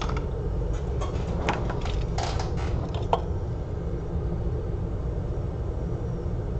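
A steady low hum of workbench equipment, with a handful of small sharp clicks and taps from tools and parts being handled in the first three seconds, during an iPad mini board repair.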